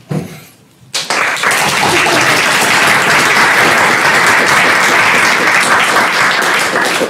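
Audience applause, starting suddenly about a second in, holding steady, and dying away near the end.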